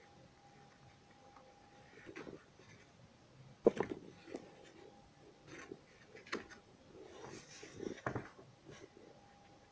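Quiet handling at a desk: four light knocks or clicks, the sharpest a little under four seconds in, with soft rubbing and scraping between them.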